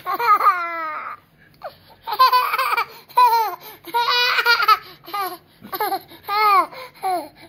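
A toddler laughing hard: a string of high-pitched belly-laugh peals, each falling in pitch, with short breaths between them.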